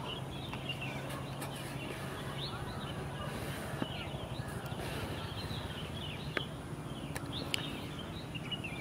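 Outdoor ambience with many small birds chirping in scattered short calls. A faint low steady hum runs under it for the first few seconds, and there are a few brief clicks.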